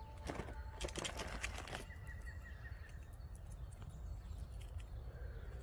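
A red squirrel rummaging inside a fabric backpack: a dense run of rustling, scratching and crackling that stops about two seconds in, followed by a faint, thin high tone lasting about a second.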